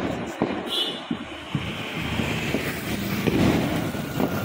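Steady outdoor background noise with wind on the microphone, broken by a few short, sharp pops of distant firecrackers.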